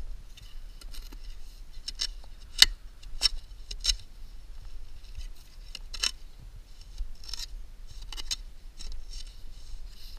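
Hand pick chopping and scraping into dry, sandy soil and roots: a string of short, sharp strikes and scrapes, the loudest a little over two and a half seconds in.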